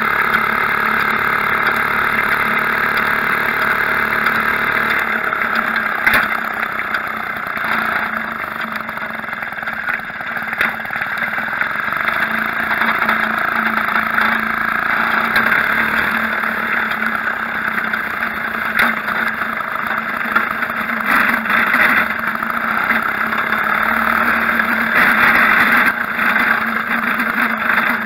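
Maytag Model 72 twin-cylinder two-stroke washing-machine engine running steadily on a homemade motorbike under way, heard close up from a frame-mounted action camera.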